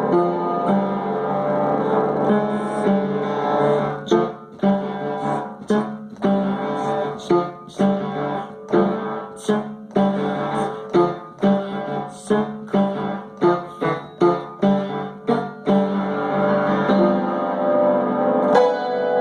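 Piano played freely, held clusters of notes at first, then a run of single struck notes at about two a second, then ringing held notes again near the end.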